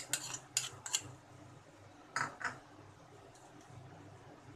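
Steel spoon scraping and tapping paste off a ceramic plate into a steel pot: several quick clinks in the first second, then two more about two seconds in.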